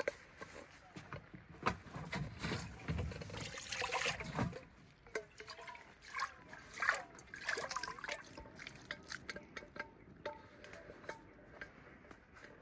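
Water being poured and sloshing for a couple of seconds, followed by scattered light clicks and knocks.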